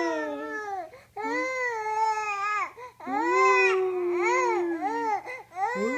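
Two-month-old baby vocalising in long, drawn-out cooing sounds that rise and fall in pitch, with short breaths between them and a few shorter calls near the end.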